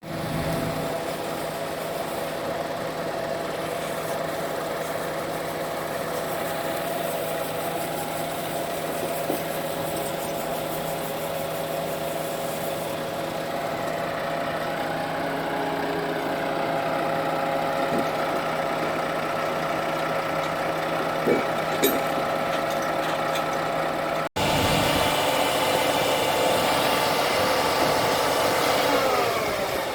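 Diesel engine of a Volvo truck-mounted concrete pump running steadily, with a couple of short knocks about two-thirds of the way through. After an abrupt cut it runs louder, then its pitch falls as it slows near the end.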